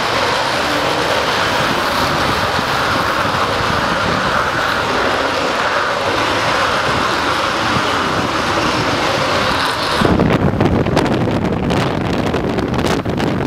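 Panavia Tornado GR4's twin RB199 turbofans running steadily at high power on the runway. About ten seconds in the sound changes suddenly to a heavy low rumble with crackle as the afterburners light for the departure.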